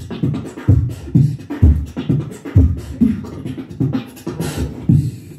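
Solo beatboxing into a handheld microphone: a rhythmic pattern of deep mouth-made kick-drum thumps with sharp snare clicks and hissing hi-hat strokes between them.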